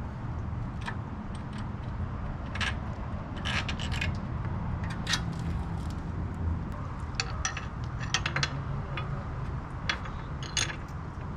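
Hand tools clinking and clicking against metal while bolts are worked on a motorcycle: irregular sharp taps and scrapes of sockets and a ratchet wrench, over a low steady hum.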